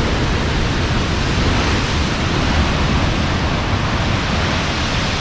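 Heavy surf breaking on a rocky shore: a loud, steady wash of wave noise.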